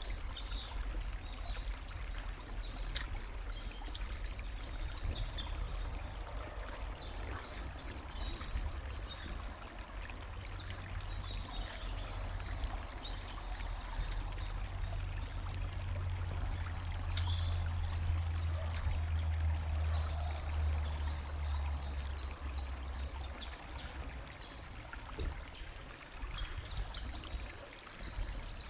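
A songbird repeats a short song of rapid, evenly spaced notes on one high pitch, each phrase lasting a second or two and coming every few seconds, with other birds chirping higher up. Water trickles and flows steadily underneath, over a low rumble that swells in the middle.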